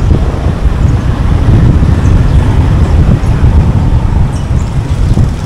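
Steady low rumble of road and wind noise from a car driving along a highway, with other traffic around.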